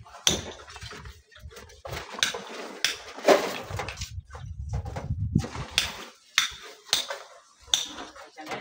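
Stones and shovels knocking against steel wheelbarrows and rock as landslide rubble is loaded by hand. Irregular sharp clanks, the loudest about three seconds in, with a low rumble in the middle stretch.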